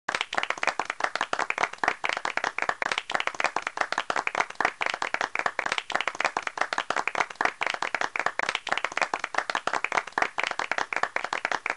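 Applause: many hands clapping in a dense, steady patter that starts abruptly.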